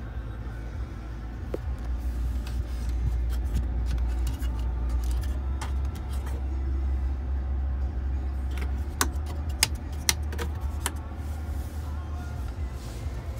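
Steady low rumble of the pickup's engine idling, heard inside the cab, with scattered sharp clicks and light rattles, most of them about nine to eleven seconds in.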